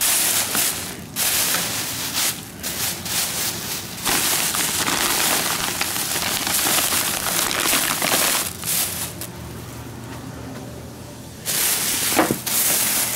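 Thin plastic grocery bags rustling and crinkling as hands rummage through them, in irregular bursts with a lull of about two seconds near the end.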